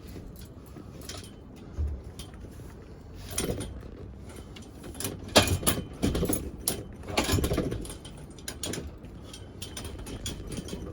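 Bed boards being handled and fitted together, giving irregular knocks, clunks and rattles, with the sharpest knock about five seconds in.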